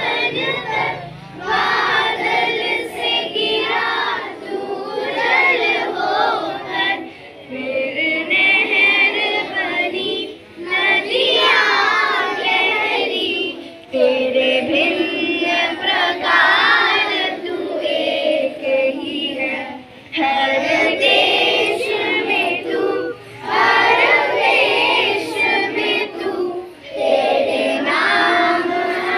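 A group of schoolchildren singing together in unison, in long phrases with short breaks between them.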